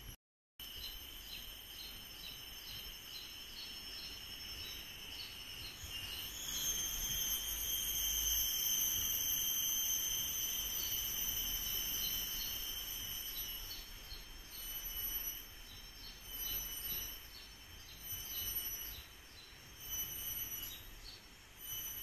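Rainforest insects droning: a steady high-pitched shrill with a fast ticking pulse, swelling and fading every second or two in the second half.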